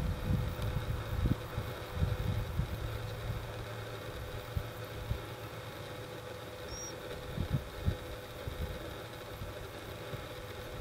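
Outdoor ambience: a steady faint hum with irregular low rumbles of wind on the microphone, strongest in the first couple of seconds.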